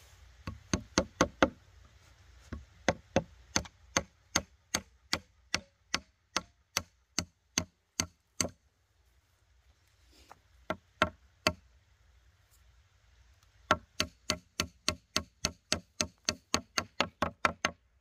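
Runs of sharp, evenly spaced strikes, two to four a second, typical of chopping or hammering. There are four runs with short pauses between them, and the last run is the fastest.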